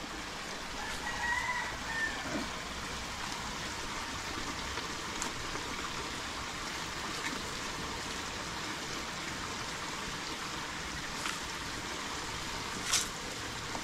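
Steady rush of a small stream of flowing water, with a faint short whistle about a second in and a few faint clicks.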